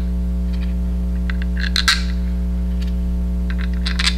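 Small stainless steel screws clicking and clinking as they are dropped into the screw holes of a water-cooling pump top, with a few light taps, a louder clink about two seconds in and another cluster near the end. A steady electrical hum runs underneath.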